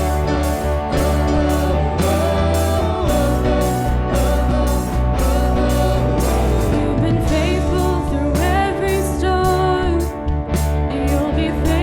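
Live church worship band playing a contemporary worship song: a steady drum beat, bass and guitar under held sung vocal lines.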